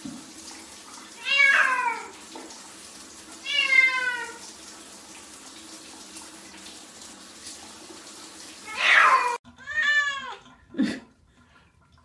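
Cat meowing, several long falling meows a couple of seconds apart, over the steady hiss of running shower water. Near the end the water sound stops, and another meow is followed by a sharp knock.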